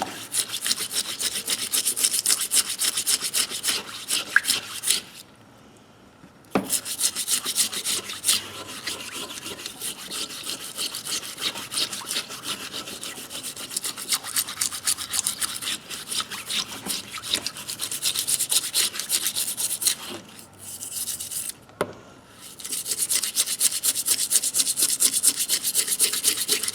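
Rapid back-and-forth hand scrubbing on rusty steel pliers, cleaning off loosened rust after a soak in rust remover. There is a pause about five seconds in and a short one near the end.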